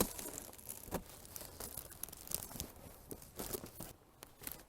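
Wrapping crinkling and rustling as it is handled, a run of irregular crackles that thins out near the end.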